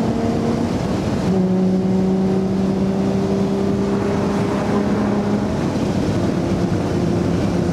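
Chrysler Crossfire's 3.2-litre V6 droning at highway cruise, heard from inside the cabin over steady road and wind noise. Its note steps down in pitch about a second in and then holds steady.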